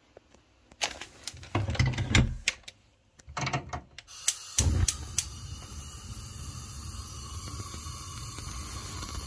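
Clatter and knocks of a stainless-steel pot being set on a gas stove's grate, then a few quick clicks and a low thump as a gas burner lights. The burner then burns with a steady hiss.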